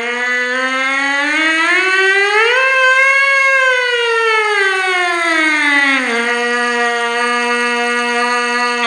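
Lips buzzing into a brass mouthpiece alone in a mouthpiece siren exercise. It holds a low note, glides smoothly up a little over an octave and back down, then holds the low note again.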